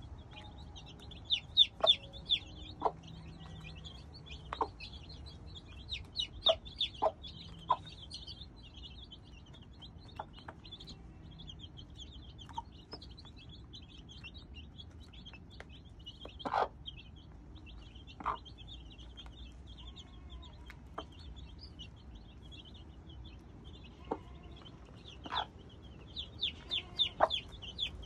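A brood of young chicks peeping continuously in quick, high chirps, with now and then a short, sharp, louder sound from the hen at the feeder, the loudest moments clustered near the start, around the middle and near the end.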